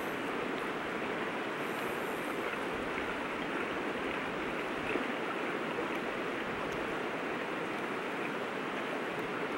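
River water running: a steady rush of flowing current.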